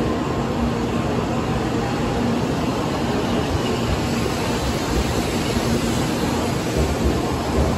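Tokaido Shinkansen bullet train moving slowly past the platform: a steady rumble of wheels and running gear with a faint constant hum.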